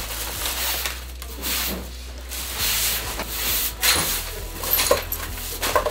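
Hand broom sweeping paper and plastic litter across tatami mats: irregular brushing swishes with rustling, and a few sharp knocks in the second half.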